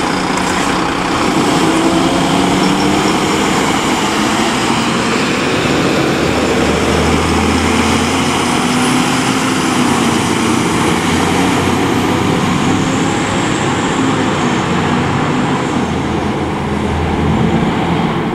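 Heavy diesel fire trucks, including a turntable ladder truck, driving out and pulling away, engines running under load with a deep drone through the middle.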